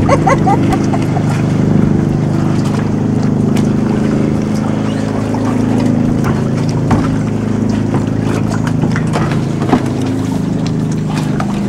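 A boat engine running steadily at an even pitch, with a few short knocks over it.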